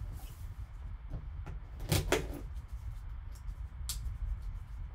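Gloved hands handling and opening a cardboard trading-card box: soft scuffs and a few taps, the clearest about two seconds in and a sharp click near the end, over a low steady hum.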